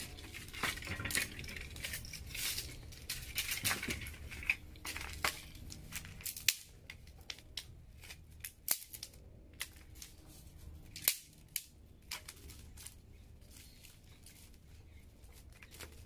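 Irregular sharp snaps and cracks of dry sticks and brush being broken and handled, coming thick for the first six seconds and then thinning to occasional louder single cracks.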